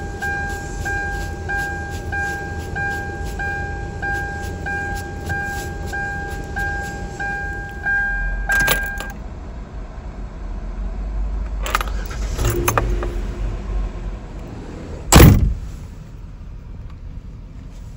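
Car warning chime beeping steadily, about three times every two seconds, until it stops with a click about nine seconds in. After a few clicks, a car door slams shut about fifteen seconds in.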